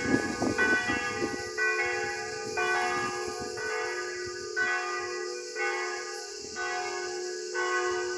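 Church bells ringing from the village bell tower. The strokes come about once a second, with a steady hum ringing on between them.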